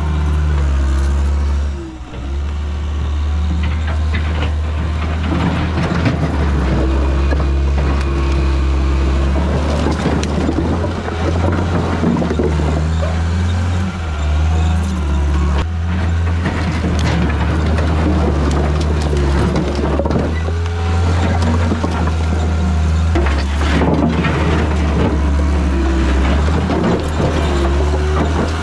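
John Deere 323D track skid steer's diesel engine running under load, its note shifting as the machine works. Over it come pitched whines and repeated knocks and clatter from the machine pushing dirt and concrete. The engine note dips briefly about two seconds in.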